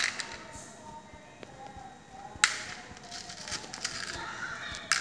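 Fingers picking through plastic beads in a compartmented plastic bead box: small clicks and rattles, with three sharper clicks, at the start, about halfway and near the end.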